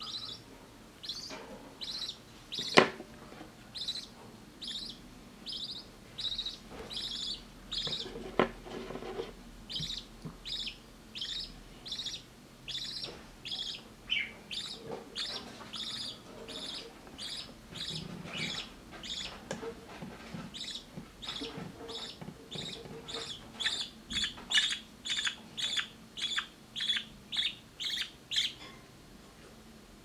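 Budgerigar chick giving a long series of short, high, evenly spaced cheeps while being syringe-fed, the rhythmic food-begging call of a nestling. The cheeps come faster and louder near the end, then stop; a single sharp knock about three seconds in is the loudest sound.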